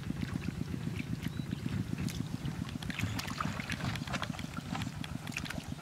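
Shallow muddy water splashing and sloshing in short, irregular strokes as hands and bare feet work through it, over a steady low rumble.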